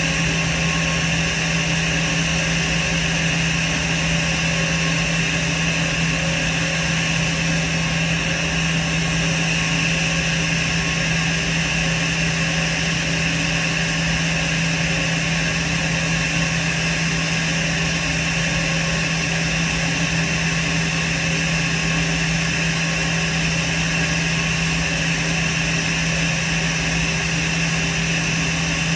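Airbus A320's jet engines idling: a steady rushing noise with a constant low hum and a high whine running through it. The engines are kept running because the aircraft's APU is inoperative and ground power has not yet been connected.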